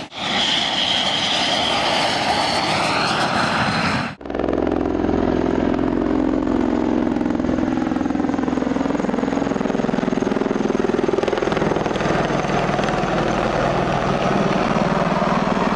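Loud aircraft engine noise in two pieces with a sudden cut about four seconds in. First comes a noisy rush with a high whine, then a steady low drone whose pitch sinks slowly.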